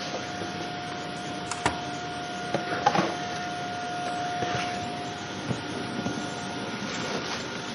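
Vacuum cleaner running on a wooden floor: a steady rushing hum with a whine, broken by scattered knocks and clicks as the head bumps and slides over the boards, with a cluster about three seconds in.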